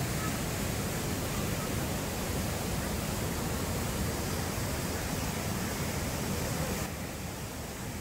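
Steady rush of the Banias stream's white water, a dense even noise with a strong low rumble; it turns a little quieter and duller about seven seconds in.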